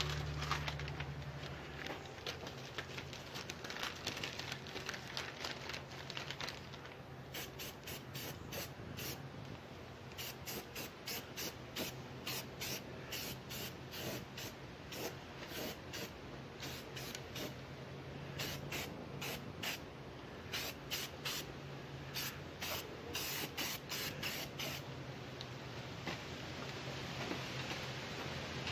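Aerosol spray-paint can hissing in many short, quick bursts as enamel is sprayed onto an outboard motor's midsection.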